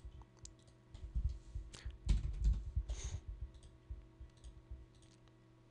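A few computer mouse clicks and some low thuds on the desk, over a faint steady electrical hum.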